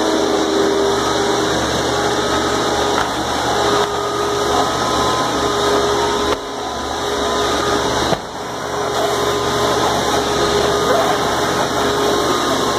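Wet/dry vacuums running steadily as they suck up floodwater through their hoses: a loud, even motor noise with a steady whine. The noise drops suddenly for a moment twice, about six and eight seconds in.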